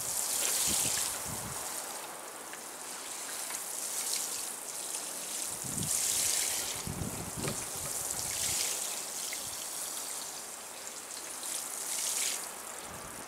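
Water showering from the rose of a plastic watering can onto bare soil, giving a raised bed a good soaking. It makes a steady spattering hiss that swells and eases several times as the can is tilted and moved.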